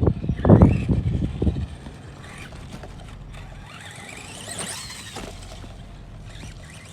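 Brushed electric motor and drivetrain of a 1:10 RC monster truck whining as it is throttled, its pitch rising and falling. It is loud for the first second and a half, then fainter.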